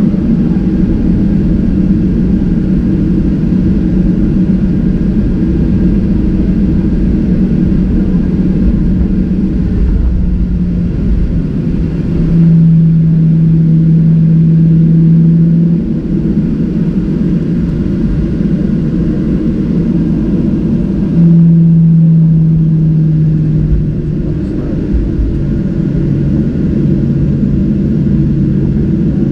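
Cabin noise of a Boeing 737-700 taxiing, heard from a seat over the wing: a steady rumble of its CFM56-7B engines at low taxi power. Twice, about twelve and about twenty-one seconds in, a steady low hum swells louder for a few seconds and then settles back.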